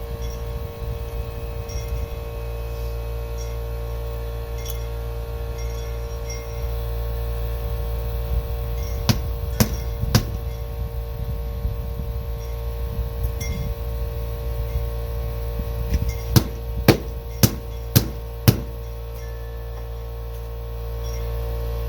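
Sharp metallic knocks: three around the middle, then a run of five evenly spaced, about two a second, near the end, over a steady hum.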